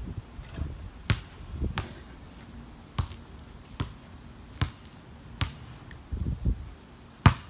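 A basketball bouncing on an outdoor court: single bounces roughly a second apart, then a louder, sharper bang near the end.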